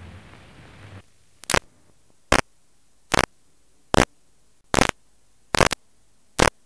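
Faint hiss fading out, then short, sharp bursts of static at a steady rhythm, about one every 0.8 seconds, from the end of the recording.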